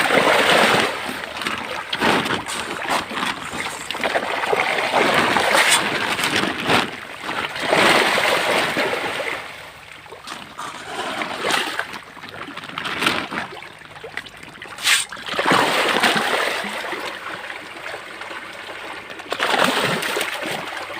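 Water splashing and sloshing in repeated surges every few seconds, with sharp knocks in between.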